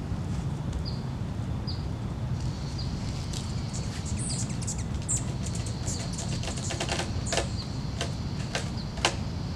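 Steady low outdoor background noise with a small bird chirping about once a second over the first few seconds, then a run of sharp clicks and ticks from about three seconds in as the TRX suspension trainer's handles and strap fittings are taken up and handled.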